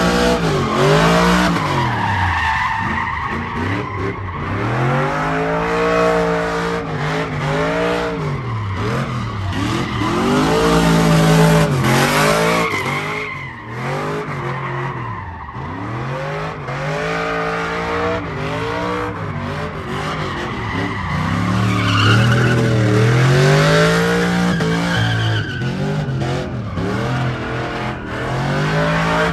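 Pickup truck doing burnout donuts: its engine revs up and falls back over and over while the rear tyres squeal and skid on the pavement.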